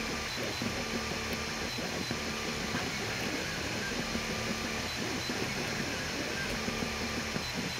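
FDM 3D printer printing: its stepper motors sing in short tones that keep changing pitch as the print head and bed move, over a steady hiss.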